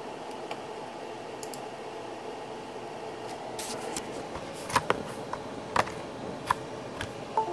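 Steady hum, with a run of about six sharp clicks and taps in the last few seconds from hands working around a laptop.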